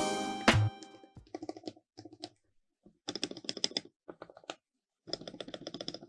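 Music ends just after the start, then mechanical keyboard keys clack in short, rapid runs like typing, about five bursts with brief gaps between them.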